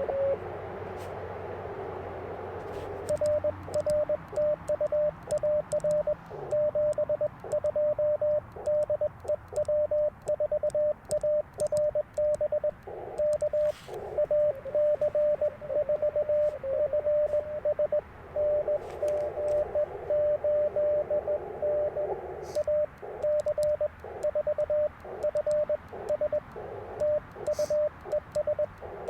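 Morse code (CW) from an Icom IC-705 transceiver on 30 meters: a steady pitched tone keyed into dots and dashes. In the first few seconds, and again for a few seconds past the middle, it sits in a hiss of filtered band noise, as when a station is being received. Faint clicks of the twin-paddle key come through at times.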